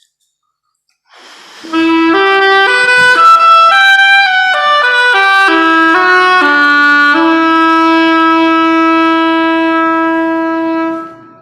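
A woodwind instrument playing a slow solo melody. About a dozen notes rise and fall, then one long note is held and fades out near the end.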